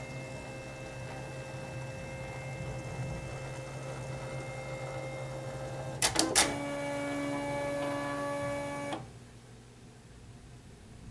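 Silhouette Cameo digital cutting machine running as it cuts card fronts from heavy cardstock, a steady motor hum. About six seconds in come two sharp clicks, then a higher motor hum that stops about nine seconds in.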